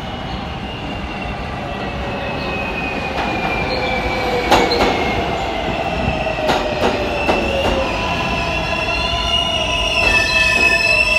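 R143 subway train entering the station and slowing, its electric whine falling slowly in pitch over the rumble of the wheels. Wheels knock sharply over rail joints several times about midway, and the whine shifts and climbs again near the end.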